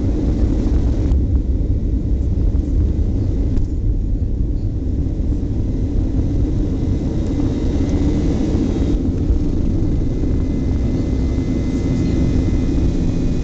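Boeing 737-800's twin CFM56-7B turbofans at takeoff thrust, heard inside the cabin: a loud, steady low rumble through the takeoff roll and lift-off.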